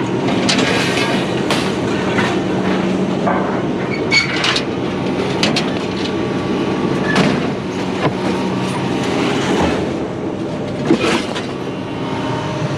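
A vehicle engine running with a steady hum, with frequent irregular rattles and metal clanks, like a truck and a trailer of scrap rolling over rough ground.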